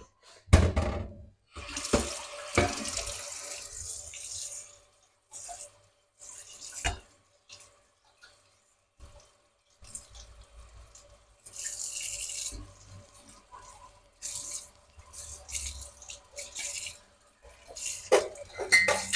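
Kitchen tap running into a sink in short spells while dishes are washed by hand, with metal bowls and pots knocking against the sink; the loudest clatter comes about half a second in.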